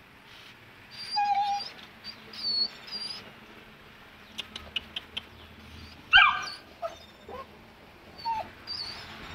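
Two-month-old Saint Bernard puppy whimpering in short, high-pitched cries, a sign of its fear of going down the stairs; the loudest cry comes about six seconds in. A few sharp clicks sound in the middle.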